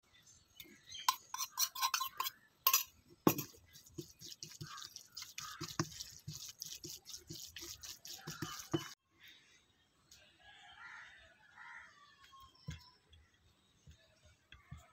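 A metal spoon scrapes and clinks against a steel bowl, then a spatula scrapes and stirs thick egg masala in a cast-iron kadai in a quick run of short strokes. After about nine seconds it cuts to a faint outdoor background with a few bird chirps.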